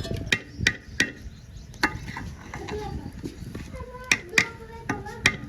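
A metal utensil knocking and clinking against a cooking pot, in about seven sharp, irregular strikes.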